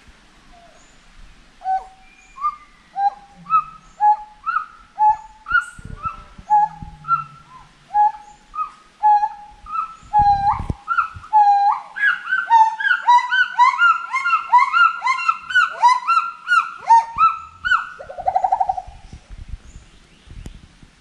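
Gibbon song: a series of hooting whoops, each sliding upward in pitch, that come faster and climb higher, break into a quick run of short high notes, and end in a brief trill.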